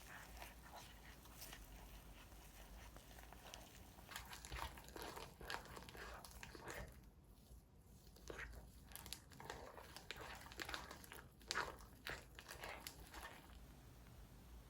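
Sherbet-style clay-mixed slime being kneaded and stretched by hand, giving faint irregular sticky crackles and small pops, busier after the first few seconds with a short lull partway through.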